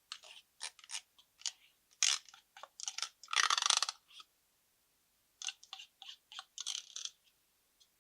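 Slime being worked by hand, giving short crackling, crunchy bursts, with one longer, louder crackle about three and a half seconds in.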